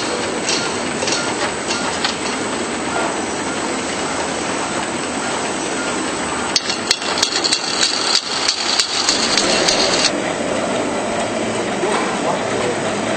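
Automatic labelling machine running on a bottle conveyor line: steady mechanical clatter with sharp clicks and knocks, a dense flurry of them from about halfway to three quarters through, then settling to a steadier hum.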